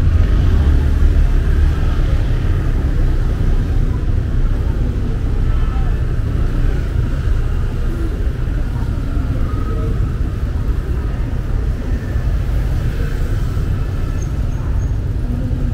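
Busy street ambience: a steady traffic rumble with indistinct voices of people nearby.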